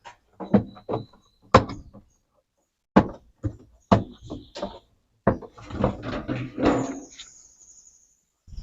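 Hard plastic knocks, clacks and scraping as the washing machine's plastic tub cover is worked loose and lifted off, a dozen or so irregular sharp knocks with a longer scrape and rustle in the second half.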